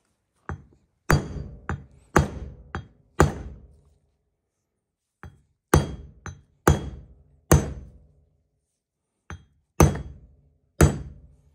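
Hammer blows driving a new bearing race into a 1977 Corvette front wheel hub. There are about eight hard metallic strikes in uneven groups, each ringing briefly, with lighter taps in between.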